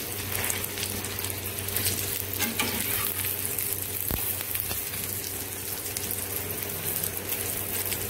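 Vegetable omelette frying in hot oil in a pan: a steady crackling sizzle with spatula scrapes. About halfway through there is a single sharp knock as the omelette is turned over with the spatula.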